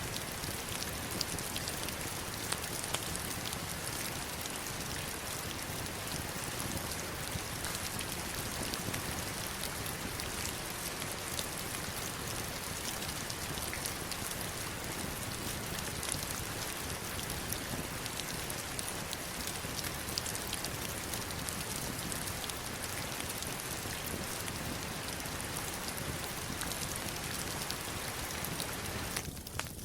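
Heavy rain falling steadily on stones and a river: a dense, even hiss of rain, flecked with the ticks of single drops striking rock and water. It thins out abruptly just before the end.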